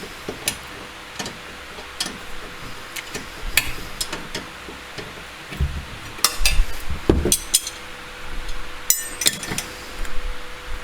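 Metal hand tools clinking and knocking: sockets and spanners worked on the rear brake caliper bolts, with scattered sharp clicks and a cluster of heavier knocks about six to seven seconds in.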